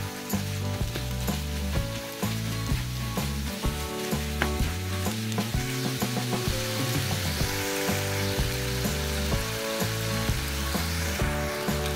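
Diced chicken and sliced onion sizzling in a frying pan, with a spatula stirring and scraping through it. Background music with steady low notes plays underneath.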